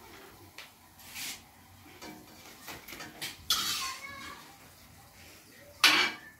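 Perforated steel skimmer clinking and scraping against a steel frying pan and a stainless steel colander as fried balls are lifted out of the oil and tipped onto paper towel: a series of light clinks and knocks, the loudest clatter near the end.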